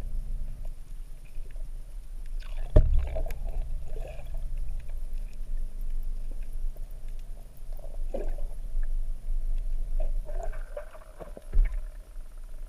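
Muffled underwater sound of water moving and gurgling around a boat hull, over a steady low rumble and hum. Two sharp knocks stand out, about three seconds in and again near the end.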